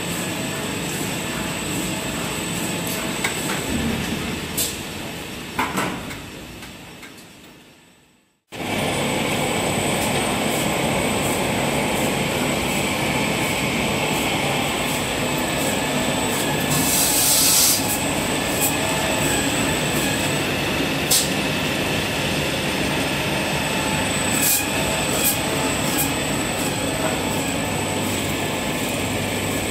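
Toilet paper production line machinery running with a steady mechanical rattle and hum, fading out about eight seconds in. After a brief silence, the roll conveyors carry on running with a short hiss near the middle and a few sharp clicks.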